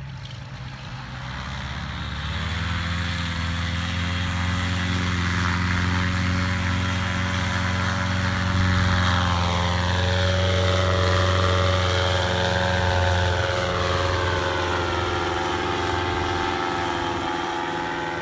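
Paramotor engine and propeller running at takeoff power, getting louder about two seconds in and then holding steady. Its higher tones waver and bend in the middle as the paramotor lifts off, flies past and climbs away.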